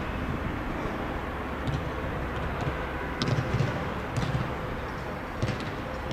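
Footballs being kicked and passed on grass: scattered short, dull thuds, several seconds apart, over a steady outdoor hiss.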